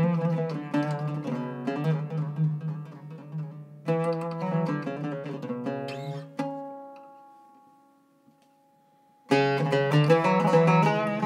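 Solo Iraqi-style Zaryab oud with a cedar top and Pyramid strings, plucked with a plectrum: a run of quick melodic notes. About six seconds in, the phrase ends on a note that rings and fades out, and after a pause of about three seconds the playing starts again.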